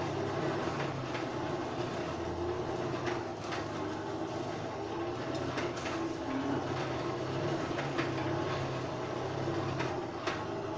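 Blacksmith's forge running with a steady low rumble while a steel ring heats evenly in the fire, with a few faint clicks.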